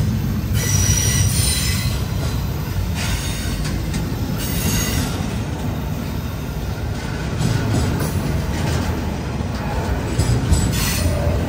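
CSX intermodal freight train rolling past, a steady rumble of steel wheels on rail. Brief high-pitched wheel squeals come several times.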